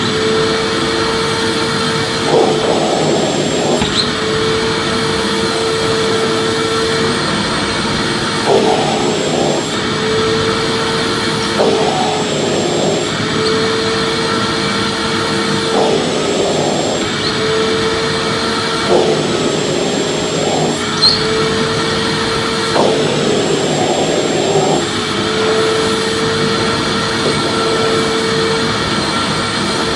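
Vacuum cleaner running steadily: a loud rushing hiss with a steady whine, which wavers and breaks briefly every few seconds.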